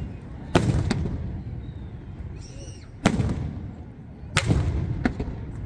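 Aerial firework shells bursting in the sky: three loud bangs, about half a second, three seconds and four and a half seconds in, each trailing off in a long echo, with a smaller pop just after the last.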